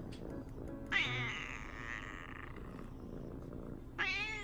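Brown tabby kitten meowing twice while being petted: a longer, breathy wavering call about a second in, and a short wavering meow near the end.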